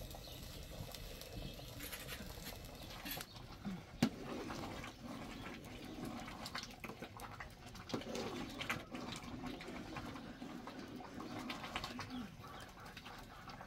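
Birds calling, low and wavering, with scattered small clicks and one sharp knock about four seconds in.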